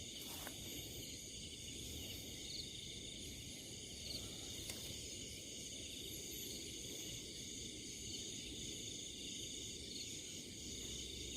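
A steady chorus of crickets and other insects, several high trills layered together without a break.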